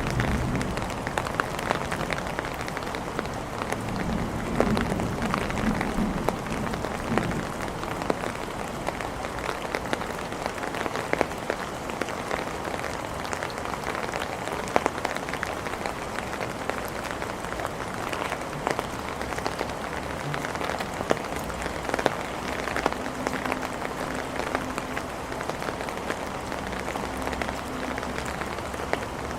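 Steady heavy rain falling, with many individual drops ticking sharply on hard surfaces over the even hiss.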